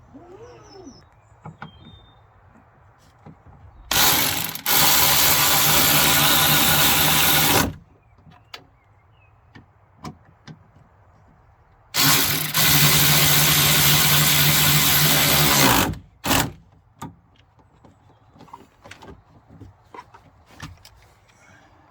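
Cordless drill running twice, about four seconds each time, with a brief blip just after the second run, as it drives fasteners tight; light clicks and handling noises between the runs.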